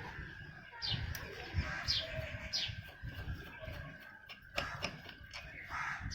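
Birds chirping in the background, a few short, high, falling chirps, over low knocks and clicks of hands and a screwdriver working on the fan housing, with a faint steady high tone underneath.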